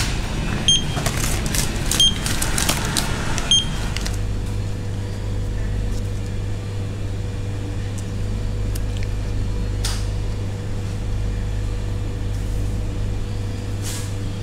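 A barcode scanner beeps three times, about a second apart, among clicks and rustling as items are scanned at a checkout. From about four seconds in a steady low electrical hum takes over, with a couple of short crinkles of plastic packaging.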